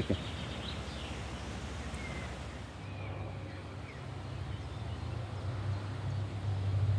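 Outdoor garden ambience: a few faint bird chirps over a steady low rumble that grows louder toward the end.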